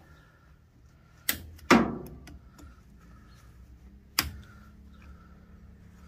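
Sharp snaps and clicks of plastic and metal as hoses and clamps are worked off a washing machine's water-inlet solenoid valve: two close together about a second in, the second the loudest, and another about four seconds in, with a few faint ticks between.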